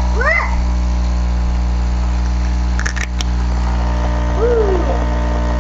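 Nescafé Dolce Gusto Genio capsule coffee machine's pump running with a loud, steady hum as it brews a capsule into the glass.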